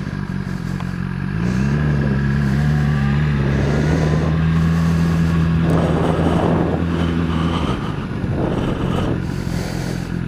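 BMW S1000RR inline-four engine running through a Pro-Race aftermarket exhaust end can, its revs rising a little about a second and a half in, holding steady, then dropping back near the end.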